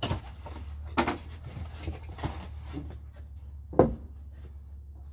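Knocks and rubbing from objects being handled at ground level: a thump at the start, another about a second in, and the loudest near four seconds in, over a steady low hum.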